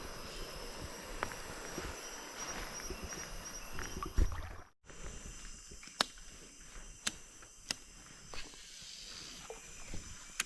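Forest ambience with a steady high-pitched hum, cutting out briefly about halfway through, then three sharp clicks roughly a second apart.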